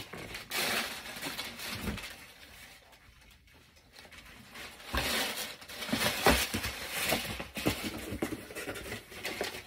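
Rustling and handling noise of unboxing: tissue paper and a cardboard box being shuffled, with a few light knocks, in two spells, one starting about half a second in and a louder one from about five seconds in.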